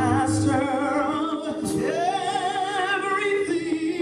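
Gospel song with a lead singer over steady accompaniment, the voice holding long notes with vibrato and sliding up into a sustained note about two seconds in.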